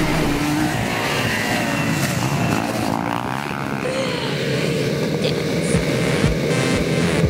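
Racing quad (ATV) engines revving and running, their pitch rising and falling with the throttle. A steady music beat comes in over them in the last couple of seconds.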